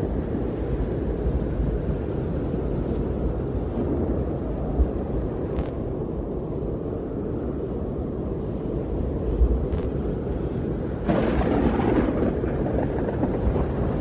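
Strong wind blowing and buffeting the microphone with a deep rumble; a louder gust comes in near the end.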